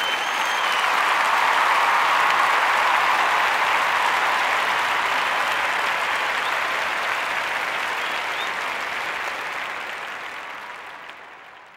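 A crowd applauding. The clapping swells up in the first couple of seconds, holds steady, then dies away over the last few seconds.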